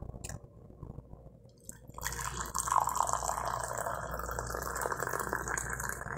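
Black coffee poured in a steady stream into a ceramic mug, starting about two seconds in and running on.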